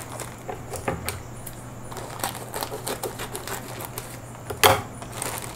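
Plastic mailer bag crinkling and rustling in scattered small clicks as a cardboard box is pulled out of it, with one louder crackle near the end.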